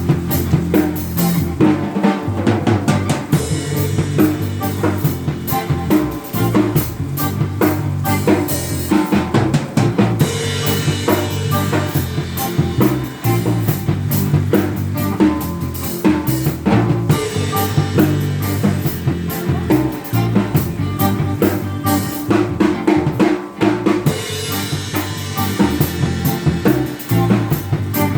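Drum kit playing a steady beat of bass drum, snare and rimshots over sustained bass notes, loud through a sound system at a sound check.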